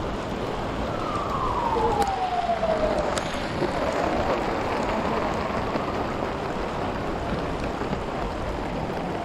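Steady rain falling, with an emergency-vehicle siren wailing slowly up and down over it.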